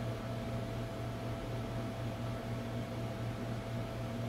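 Steady low mechanical hum with a faint higher steady whine, unchanging throughout, like a household appliance or fan running.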